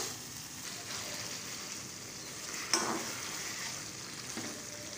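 Beef and masala sizzling as they fry in a metal pot while being stirred with a metal spatula, which knocks sharply against the pot at the start and again about three seconds in. The steady sizzle is the yogurt's liquid cooking off as the meat is fried dry.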